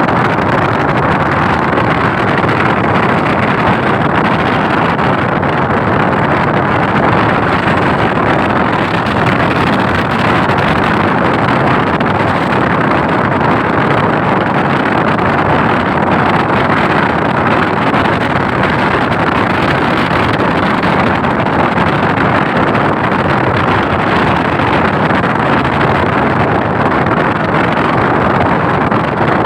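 Loud, steady rushing noise, even throughout, with no distinct tones, rhythm or breaks.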